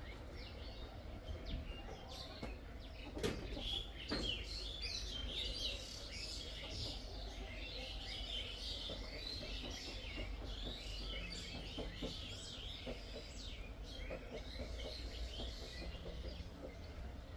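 Many rapid, high chirps from birds, a mother bird and her young, calling continuously. Two sharp clicks stand out about three and four seconds in, over a steady low rumble.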